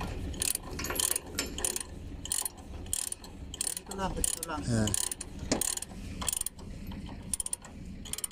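Ratchet chain binder being cranked to tension a tie-down chain, its pawl clicking in irregular runs as the handle is worked back and forth.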